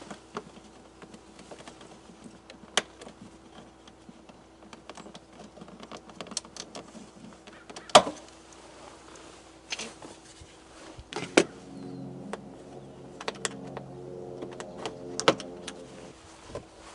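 Sharp clicks and knocks of plastic door trim pieces being handled and pried loose, then a small electric motor running steadily for about four seconds in the second half.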